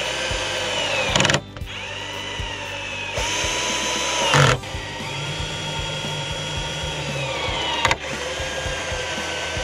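Electric driver running in five runs with short breaks, driving screws into wood; its motor whine shifts in pitch from run to run.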